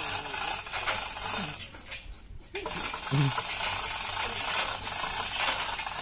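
Light metallic clinks and rattles of line-array speaker rigging hardware being handled on a metal truss, over steady outdoor noise, with a brief dip in level about two seconds in.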